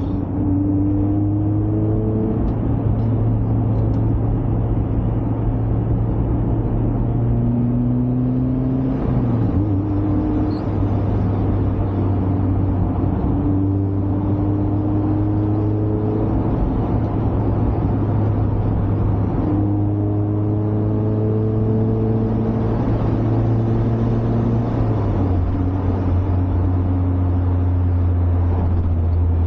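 Mazda MX-5's four-cylinder engine running steadily on the move, with continuous tyre and road noise. The engine note drops in pitch about nine seconds in and again near the end.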